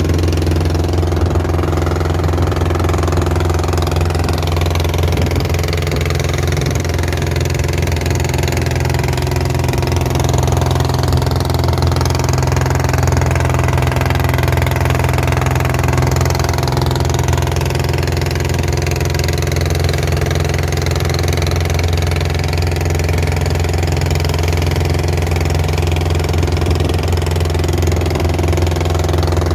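Long-tail boat engine running at a steady speed, a constant low drone that holds unchanged throughout.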